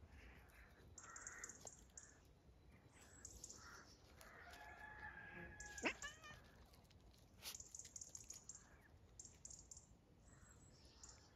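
Faint animal call, pitched and lasting about a second and a half, about halfway through, ending in a sharp click, amid soft scuffling of paws on gravel.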